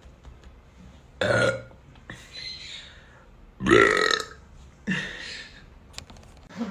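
A man burping loudly twice, about a second in and again at three and a half seconds, the second burp the louder and longer. Shorter, quieter sounds fall between and after the burps.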